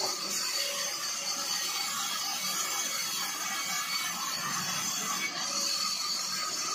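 Large table band saw running and ripping a wooden plank lengthwise: a steady whine with a hiss from the blade cutting through the wood.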